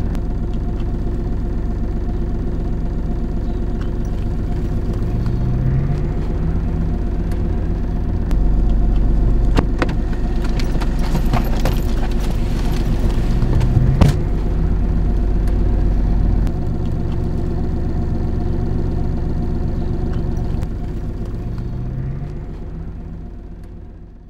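Car engine and road noise heard from inside the cabin, a steady low rumble that rises in pitch a few times, with a few clicks and knocks around the middle. It fades out near the end.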